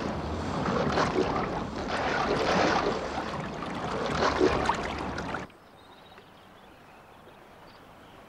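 A loud, even rushing noise with some brighter streaks through it, which cuts off suddenly about five and a half seconds in and leaves only a faint hush.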